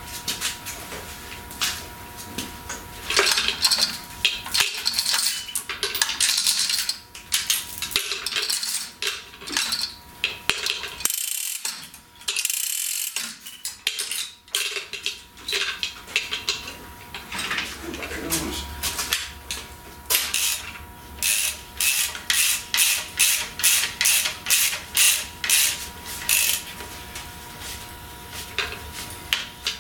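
Metal clinking and clanking from an engine hoist, its chains and the hanging Jaguar V12 engine and gearbox as they are maneuvered by hand, with a regular run of ratchet-like clicks, about two a second, in the second half.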